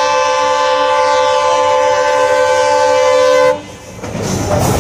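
Diesel locomotive horn held in one long blast of several steady tones sounding together, cutting off sharply about three and a half seconds in. Near the end the noise of the express train running through the station builds up.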